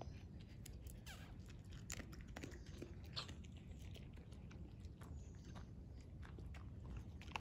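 A dog chewing dry kibble: irregular crunches of the pellets being bitten, over a faint low steady rumble.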